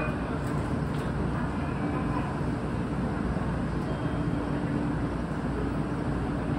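Steady low hum of a JR Kyushu 817 series electric multiple unit standing at the platform just before departure, with a faint steady tone that fades out a second or so in and returns about four seconds in.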